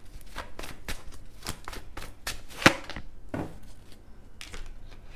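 Tarot deck being shuffled by hand: a quick run of card flicks and snaps, with one sharp louder snap a little under three seconds in, thinning out after that.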